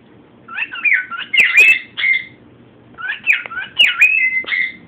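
Male cockatiel singing: two repeated phrases of rising and falling whistles, each about two seconds long.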